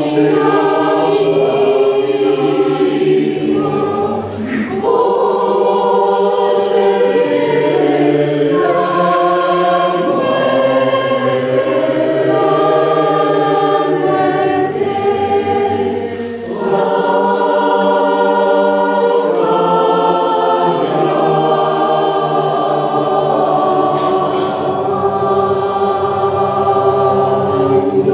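A choir singing in several parts, holding sustained chords, with brief breaks between phrases about four seconds and sixteen and a half seconds in.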